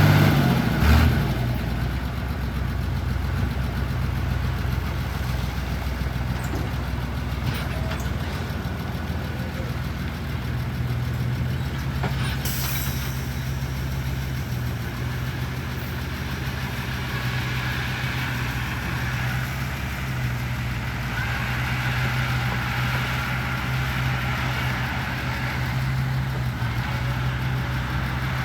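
Diesel engine of a heavy construction machine running steadily, with a sharp knock about a second in.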